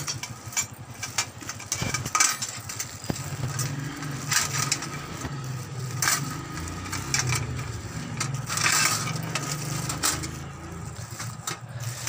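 Clear plastic wrapping crinkling and rustling in irregular crackles as hands pull wire oven accessories out of it, with occasional light clinks of the metal parts.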